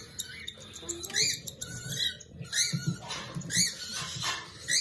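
Baby cockatiel chicks giving repeated begging calls while being hand-fed: short, rasping high chirps, roughly one a second.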